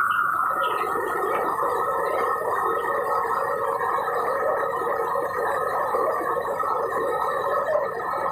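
Steady bubbling roar of a commercial wok range: water boiling hard in a steaming wok over a gas burner, with a tap pouring onto the range.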